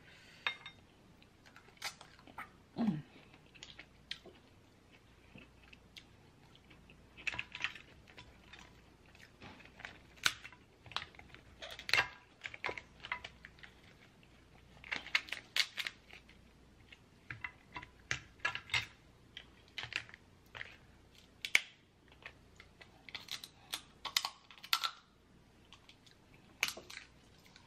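Boiled Dungeness crab shell being cracked and pulled apart by hand, with chewing: irregular bunches of small cracks and clicks.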